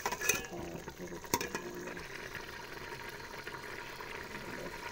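A steel ladle stirring a simmering lentil and ridge-gourd curry in a steel pot, with two sharp clinks of the ladle against the pot in the first second and a half. Steady bubbling and sizzling as the curry fries down in ghee.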